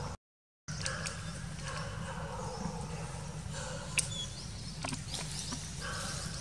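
Outdoor ambience: a steady low hum under many faint, short high chirps, with a single sharp click about four seconds in. The sound cuts out completely for about half a second just after the start.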